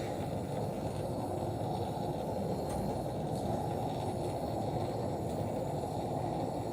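Handheld gas torch flame burning with a steady roar while heating a copper pipe joint for soldering.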